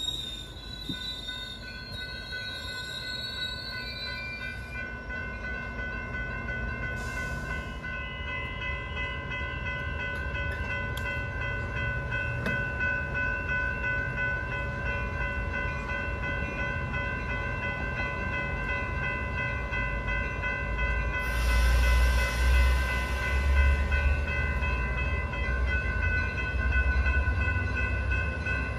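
Coaster bi-level commuter train pulling out of the station, drawn by its EMD F59PHI diesel locomotive. A wheel squeal wavers briefly at the start, over a steady high whine and rolling rumble. About three-quarters of the way through, a louder low rumble with a hiss comes in.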